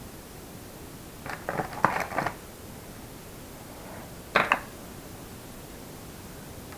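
A small screwdriver being picked up and handled: a cluster of light clinks and knocks about a second and a half in, then a sharper pair of clicks a little after four seconds.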